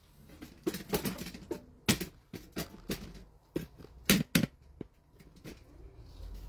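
Handling noise: a string of irregular clicks and light knocks, with the loudest two close together about four seconds in.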